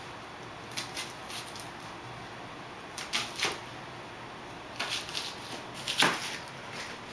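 Chef's knife dicing an onion on a cutting board: sharp taps of the blade on the board, coming in short irregular runs every second or two.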